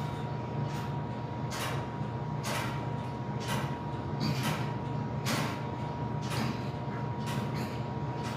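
A man breathing out hard in short hissing breaths, about one a second, as he works through a set of pull-ups. Under them runs a steady low hum.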